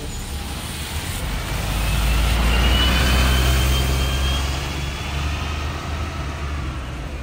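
A heavy road vehicle passing close by on a wet road: a low engine rumble with tyre hiss that builds, peaks about three seconds in, and fades away.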